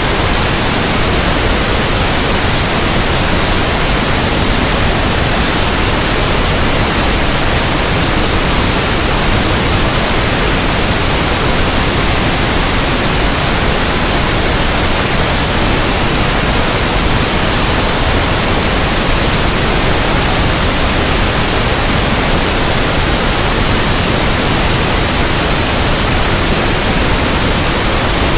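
Steady pink noise: an even, unchanging hiss with no events.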